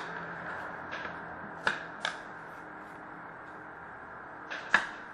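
Trading cards being handled and flicked through by hand, giving about five short, sharp card clicks and snaps, the loudest a little after the first second and near the end.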